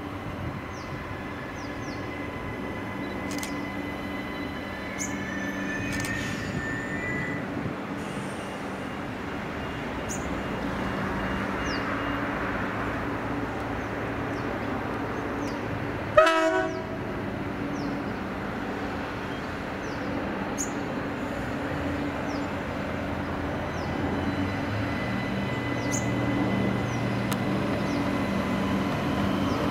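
A 3000 class diesel railcar approaching slowly, its engine running with a steady hum under a rumble that slowly grows louder, the low engine note getting stronger a few seconds from the end. About halfway through comes one short, sharp, loud sound.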